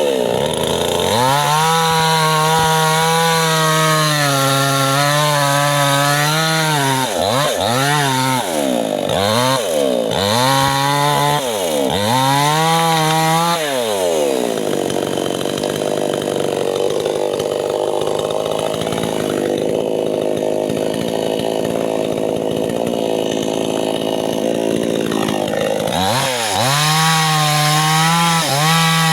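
Small two-stroke chainsaw cutting saman wood at high revs, its pitch dipping and recovering again and again as the chain bogs in the cut. For about twelve seconds in the middle the engine tone gives way to a steadier, noisier sound, then the saw revs up again near the end.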